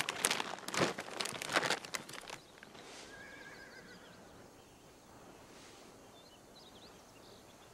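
A plastic bag of peanuts crinkling and rustling in a flurry of sharp crackles for the first two seconds or so. It falls to a quiet stretch with a faint warbling call about three seconds in.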